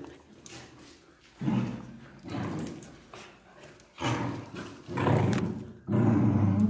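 Dog growling in a series of short, low, rough bursts that grow louder and longer toward the end.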